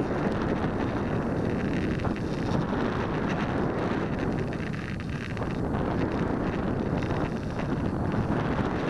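Steady wind noise from air rushing over a camera on the nose of an Alula Evo, an unpowered discus-launch glider, in flight.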